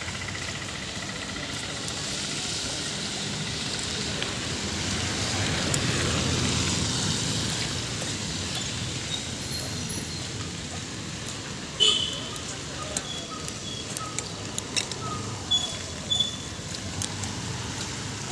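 Street ambience on a rain-wet road: a steady wash of traffic and rain noise that swells as a vehicle goes by about six seconds in. In the second half come short high chirps and ticks.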